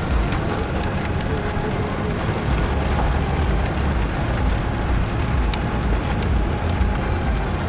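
Car driving along a road with a steady low rumble of road and engine noise.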